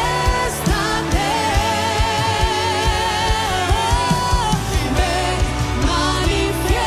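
Live worship song: a woman's voice singing with vibrato, holding one long note for about three seconds, over a band with a steady drum beat and bass.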